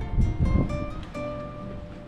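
Background music: plucked guitar playing a melody of held notes that change about every half second.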